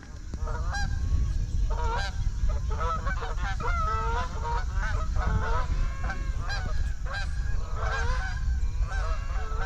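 A flock of Canada geese honking, many short calls overlapping one another throughout, as the geese come in over the decoys. A steady low rumble runs underneath.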